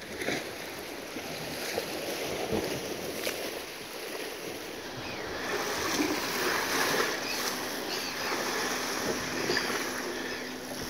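Sea surf washing against the rocks, with wind on the microphone; the rushing noise swells about halfway through.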